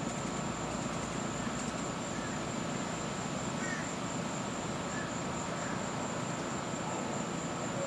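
Steady outdoor background noise with a thin, steady high whine throughout, and a few faint short chirps about three to six seconds in.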